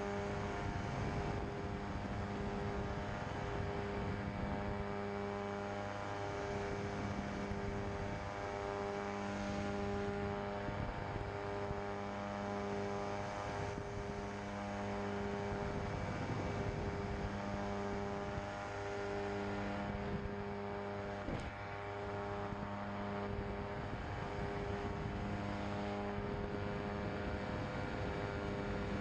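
Pterodactyl Ascender II ultralight's engine and propeller running steadily in cruise flight, a continuous drone with a slow, regular waver in its lower tones.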